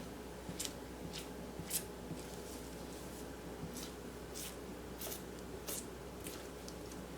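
A scraper working melted chocolate across a marble slab, as in tabling to temper it. About a dozen short, irregular scrapes and taps sound over a low, steady hum.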